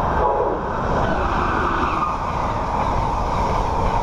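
Train running along the track: a steady, loud rumble and rattle of wheels on the rails.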